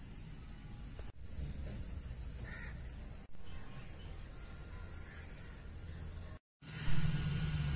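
Small birds chirping again and again, short high notes, over a steady low rumble. A little over six seconds in the sound drops out briefly, then comes back with a thump and a steady high hiss.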